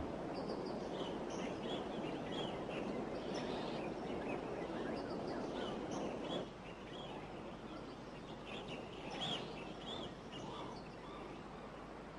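Rainforest river ambience: a steady rush of water with many short, high bird calls over it. The rushing drops away suddenly about six seconds in, leaving quieter ambience with the bird calls going on.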